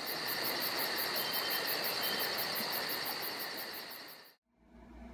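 Chorus of crickets or similar night insects: a rapid pulsing chirp, about six pulses a second, over a steady high trill, fading and then cutting off about four seconds in.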